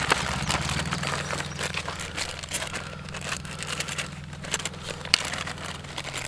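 An engine running steadily with a low hum, while plastic packaging crinkles and rustles with scattered crackly clicks.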